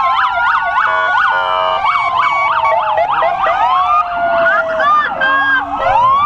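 Several police car sirens sounding at once. Fast yelps and slower rising and falling wails overlap the whole time.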